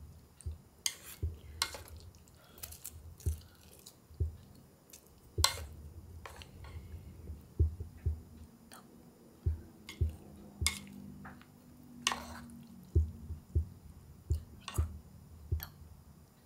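Someone eating ramen: chewing noodles, with scattered soft clicks and knocks of wooden chopsticks against a ceramic bowl and a metal pot.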